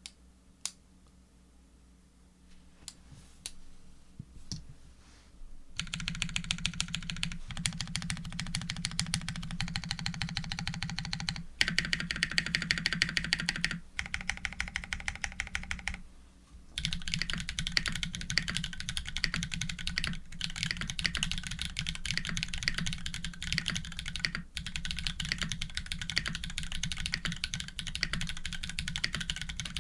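Typing on an Orion v2.5 custom mechanical keyboard with Holy Panda tactile switches, an FR4 plate and GMK keycaps. A few single key presses come first, then fast, continuous typing starts about six seconds in and runs on with a few short breaks.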